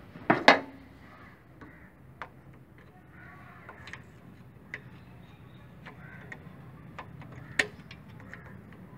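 Scattered sharp metallic clicks and taps of hand pliers against the engine's bolts and casing, with two loud knocks about half a second in and another loud click near the end.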